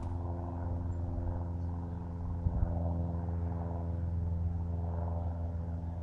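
A steady low machine hum with a buzzy edge, with two short knocks about two and a half seconds in.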